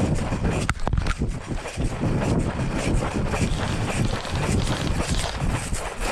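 Wind buffeting an action camera's microphone: a dense, uneven rumble, with two sharp clicks about a second in.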